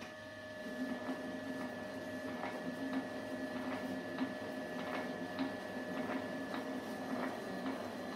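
Metal shaper running, working on the commutator of an old tractor starter-motor armature: a steady motor hum with a regular click at each stroke of the ram, a little under two a second. It picks up within the first second.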